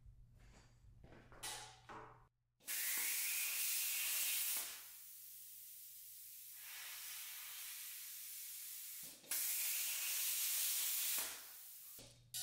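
Hand-held air plasma cutter cutting steel plate: two loud, steady hissing cuts of about two seconds each, with a quieter air hiss between them, as the slot joining two drilled holes is cut.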